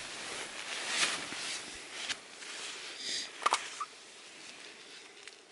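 Soft rustling of fabric close to the microphone, with a few sharp handling clicks and knocks, the loudest a double click about three and a half seconds in. It then fades away.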